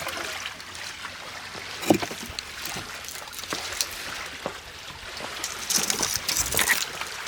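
Small river waves lapping and washing on a sand and shell shoreline, with scattered short crunches and knocks; a louder wash comes about six seconds in.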